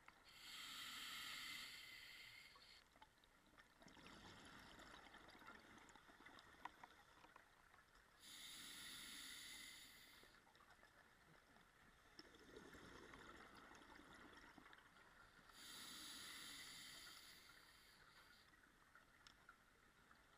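A scuba diver breathing underwater through a regulator: three bursts of exhaled bubbles about seven seconds apart, with a softer hiss between them.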